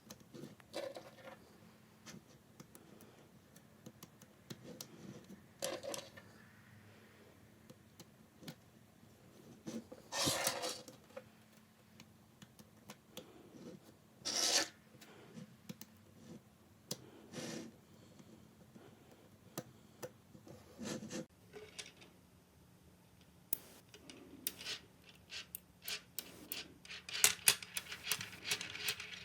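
Small magnetic balls being handled and snapped together: scattered clicks and short rubbing, sliding scrapes, with a couple of longer scrapes partway through. Near the end the clicks come in quick, dense runs.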